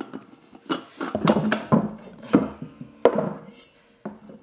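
Irregular knocks and rubbing as a bike saddle's clamp assembly is worked down onto a Peloton seat post, hard parts bumping against each other.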